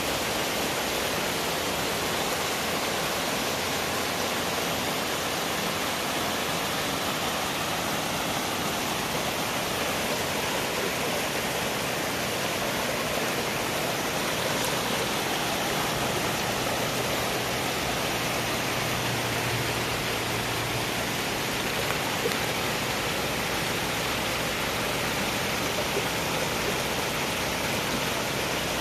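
River water rushing, a steady, even rush of flowing water.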